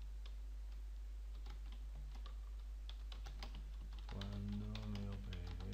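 Computer keyboard keys typing a run of text, quick irregular clicks over a steady low hum. A low voice hums briefly about four seconds in.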